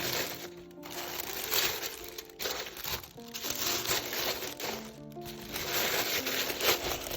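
Background music with a melody of held notes, over which paper or plastic packaging crinkles and rustles in irregular stretches as it is handled.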